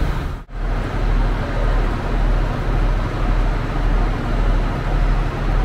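Irish Rail InterCity diesel railcar train idling at the platform, a steady low engine hum under the echoing noise of a busy train shed. The sound cuts out briefly about half a second in.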